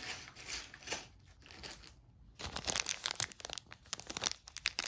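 Clear plastic zip bag crinkling as it is picked up and handled, with cardboard tokens shifting inside. A short burst of crinkling at the start, then denser, steadier crinkling from about halfway on.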